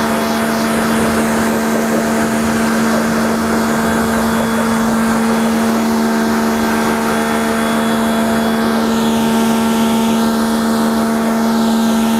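Motoyama electric high-pressure washer running at full pressure: a steady hum from its motor and pump, with the hiss of the water jet spraying onto a scooter.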